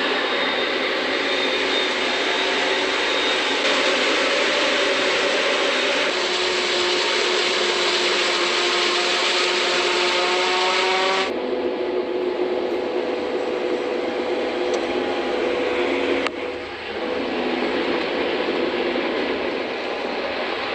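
Harvesting machinery running steadily under load, a loud engine drone with grinding mechanical noise; the sound changes abruptly about 11 seconds in and drops briefly near 16 seconds.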